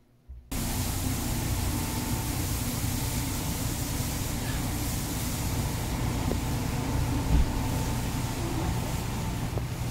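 Steady rushing hum of running shop equipment, such as ventilation or a compressor, with a faint thin tone over it. A few light clicks near the end.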